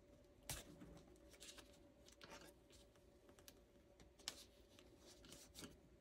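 Faint scratching, rubbing and light clicks of a paper sticker being smoothed onto a planner page and lifted again by hand and with a smoothing tool. The sharpest clicks come about half a second in and just past four seconds in.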